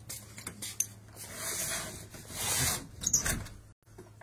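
Handling noise on a phone's microphone as the phone is moved: scattered clicks, then two swells of rubbing noise and a sharp knock. The sound drops out for a moment near the end.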